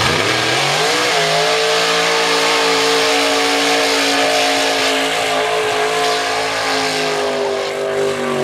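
Mud bog truck's engine revving hard: it climbs steeply over the first second as the truck launches into the mud pit, then is held at high revs, nearly steady, while the truck ploughs through the mud.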